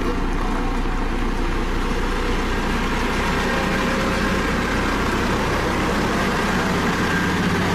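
Dynapac CC522 tandem road roller's diesel engine running steadily.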